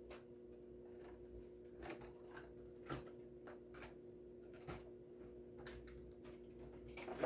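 Faint, scattered clicks and crackles of a die-cast toy car's plastic blister pack being handled and opened, over a steady low hum; the loudest click comes near the end.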